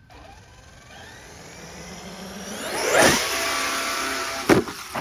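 Traxxas X-Maxx electric RC monster truck's brushless motor whining as it accelerates, the pitch rising for about two seconds to a loud peak about three seconds in, with tyres churning dirt. A sharp, hard impact about four and a half seconds in as the truck hits the ground.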